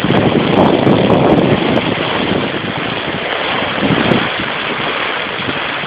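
Heavy rain pouring down as a steady rushing hiss, louder for the first second or two and then even.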